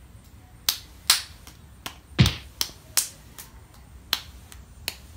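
Hand claps: about ten sharp, separate claps at roughly two to three a second, with one heavier clap and thump about two seconds in.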